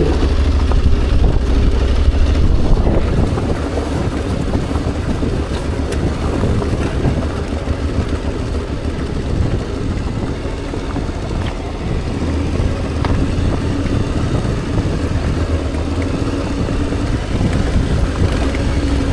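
Motorcycle running steadily on the move, with a low wind rumble on the microphone.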